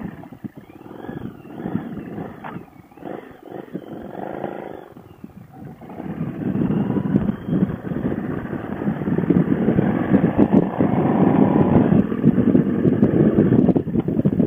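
Harley-Davidson Sportster V-twin engine running under way with wind noise, heard narrow and muffled as through a helmet headset. It is quieter at first with a wavering high tone, then grows louder about six seconds in and stays loud.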